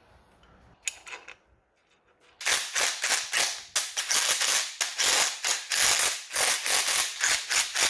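Hand ratchet tightening the water pump nuts onto the engine block, a quick run of clicking strokes about three a second that starts a couple of seconds in.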